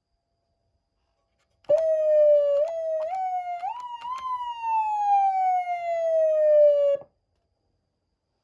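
Galls Street Thunder ST240 electronic siren amplifier sounding a siren tone. The tone starts suddenly about two seconds in and climbs in pitch in a few quick steps. It then slides slowly down and cuts off abruptly.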